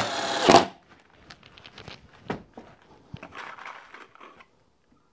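Cordless drill-driver running in a short burst of about half a second, driving a screw into a wooden board. It is followed by scattered clicks and knocks from handling the drill and mount.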